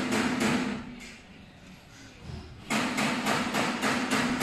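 A motor-driven mechanism of an A3 printer running in two short spells, about a second long and then a couple of seconds long, a steady hum with a rapid, even clicking over it.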